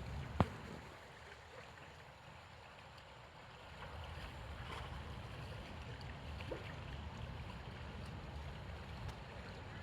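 Low rumbling noise with one sharp click about half a second in.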